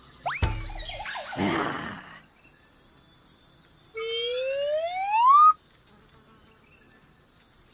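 A loud rising whistle sound effect, climbing steadily in pitch for about a second and a half and cutting off sharply. It comes after a short swooping sound and a brief whoosh near the start.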